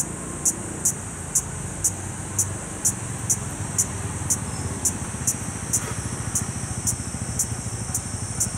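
Cicadas shrilling: a steady high-pitched buzz with a sharp pulse about twice a second, over a low rumble.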